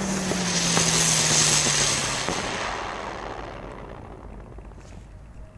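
Ground-spinner firework ('rose') spinning on ice: a loud hiss of sparks with a low steady whir that sinks slightly in pitch and stops about two seconds in, then the hiss fades out as it burns down.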